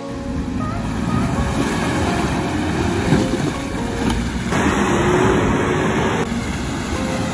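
Nissan Patrol's ZD30 turbo-diesel engine running as the 4WD drives through a muddy, water-filled rut, mixed with a dense rumble of tyres and mud.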